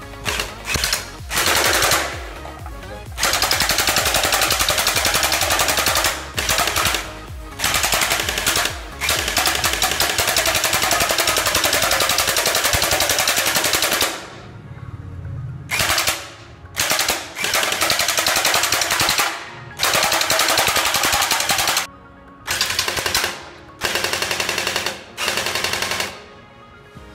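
Electric gel-ball blaster (M4A1 Gen8 toy rifle) firing full-auto: a rapid rattle of shots in long bursts, then shorter bursts with brief pauses after about 14 seconds.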